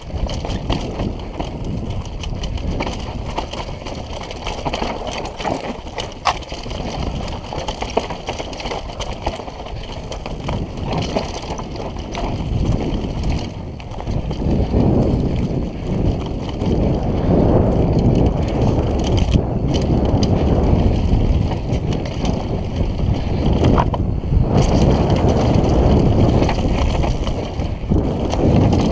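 Downhill mountain bike rolling fast over a dry dirt and rock trail: a steady rumble of tyre noise and wind on the microphone, with the bike rattling and knocking over bumps. It gets louder about halfway through.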